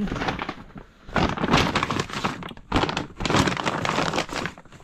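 Clothing and plastic sheeting rustling and crinkling in several bursts as a gloved hand rummages through a plastic storage tote and pulls out a pair of jeans.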